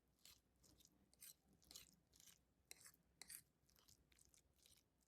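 Someone chewing crunchy food: faint, crisp crunches coming irregularly, about two to three a second.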